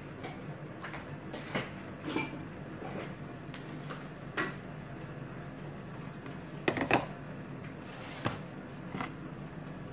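Scattered knocks and clatters of kitchen items being moved about on a stainless-steel counter, the loudest a close pair of knocks about seven seconds in, over a steady low hum.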